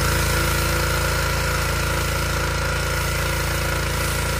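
Pressure washer running steadily: a constant, evenly pulsing machine drone with a hiss over it.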